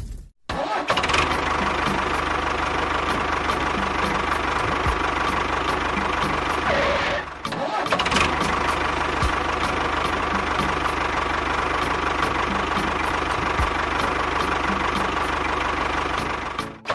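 Small motor of a DIY miniature tractor or construction model running steadily, the sound breaking off abruptly for a moment about half a second in and again about seven seconds later.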